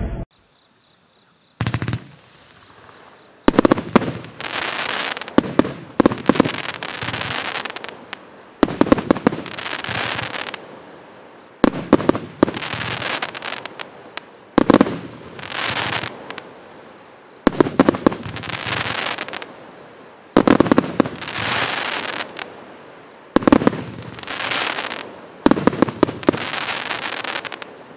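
Pyroworx Sigma 30mm 60-shot V-shape firework cake firing, starting about two seconds in. It goes off in volleys about every three seconds, each a quick run of sharp shots followed by a second or two of crackling bursts.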